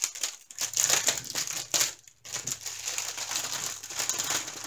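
Clear plastic bag of diamond painting drill baggies crinkling as it is handled and moved about, with a brief pause about two seconds in.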